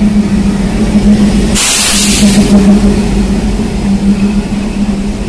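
WDM3D-type diesel-electric locomotive passing close by at low speed, its engine giving a steady drone over a low rumble. A short burst of hiss cuts in about a second and a half in and stops within a second.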